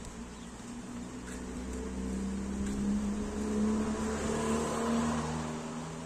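A motor vehicle's engine running steadily, growing louder to a peak about four to five seconds in and then fading, as a vehicle passing by would.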